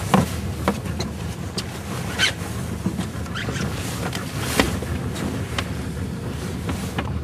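Small motorboat's engine running steadily, with a few scattered knocks and clatters from things being handled in the boat.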